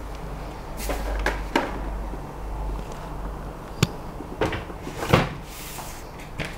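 Knocks and clunks of a resin 3D printer being handled, lifted and set down on a metal baking sheet, with the loudest thud about five seconds in as it lands on the tray.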